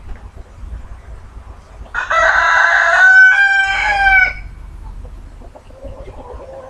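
A rooster crowing once: a single loud call of a little over two seconds, starting about two seconds in, with a brief break partway through.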